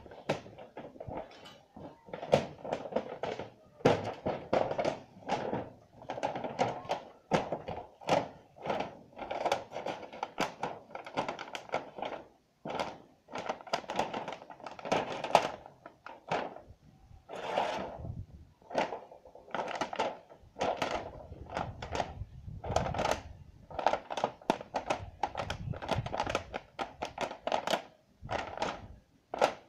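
Rapid, irregular knocks and thuds, often several a second, from old corrugated metal roofing sheets being handled and worked on the ground.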